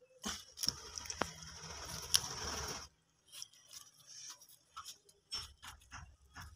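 Hand work on an embroidered leather sandal: scraping and rustling with sharp clicks as a hand tool works the strap, then scattered light clicks and taps as the sandal is handled.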